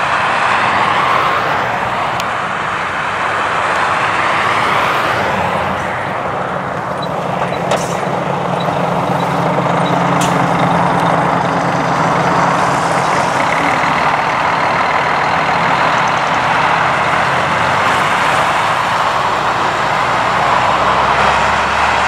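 Diesel coach driving past on a snow-covered road: engine running with steady tyre and road noise, the engine's low hum strongest in the middle as the coach passes close by.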